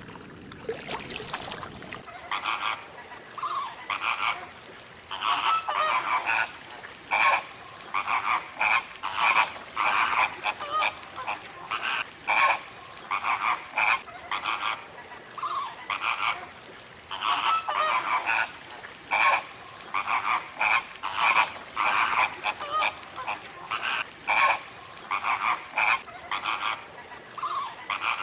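A flock of waterfowl calling: short honking calls repeated several times a second in uneven groups, after about two seconds of plain noise at the start.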